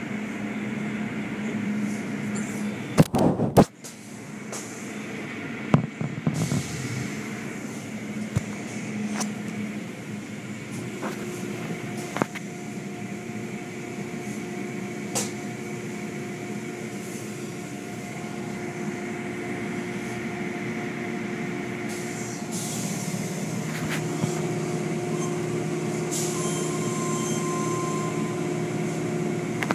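Automatic tunnel car wash heard from inside the car: a steady hum of wash machinery over water spray and cloth curtains sweeping the car. There are a few sharp knocks about three seconds in, another near six seconds, and more steady hum tones join toward the end.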